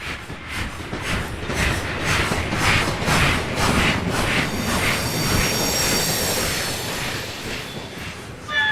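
Steam locomotive passing, fading in with its exhaust chuffing about twice a second. High ringing tones rise over the chuffs around the middle, and a many-toned whistle starts right at the end.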